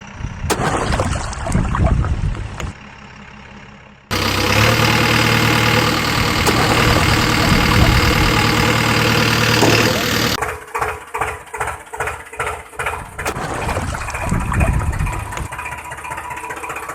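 Diesel engines of heavy earth-moving machinery and trucks running, in several abruptly cut segments. About ten seconds in there is a stretch of rhythmic pulsing, about two to three beats a second, followed by a steadier running sound.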